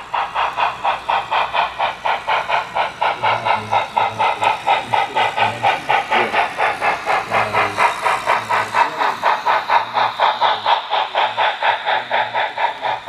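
A sound-equipped model D&RGW L-131 2-8-8-2 steam locomotive chuffing steadily at about four chuffs a second as the train runs past, with a low rolling rumble from the wheels on the track.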